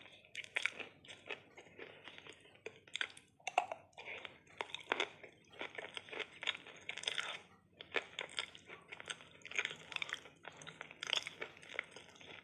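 Close-up chewing of a mouthful of edible clay, irregular crunching and crackling bites, with a brief pause about eight seconds in.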